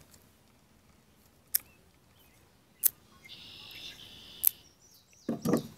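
Three sharp snips of scissors cutting through thin twisted paracord, spaced about a second and a half apart, with a faint high-pitched buzz between the second and third.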